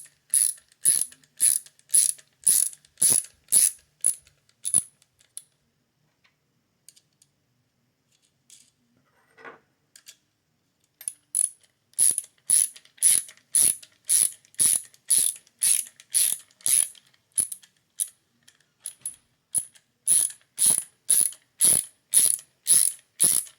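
Klein stubby ratcheting nut driver clicking steadily as its ratchet is swung back and forth to drive a fastener, about two to three clicks a second. The clicking stops for several seconds shortly after the start, then resumes and keeps going.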